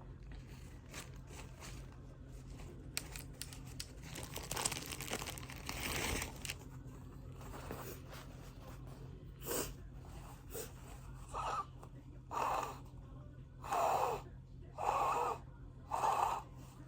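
A person blowing their nose into a tissue, with soft tissue crinkling at first, then a long blow about four seconds in. From about nine seconds on comes a run of seven short blows about a second apart.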